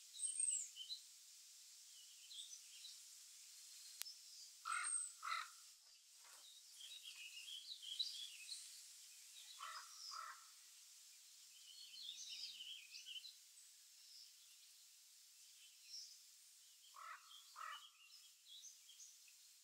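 Faint, scattered chirping and twittering of small songbirds, with a lower two-note call heard three times, about 5, 10 and 17 seconds in.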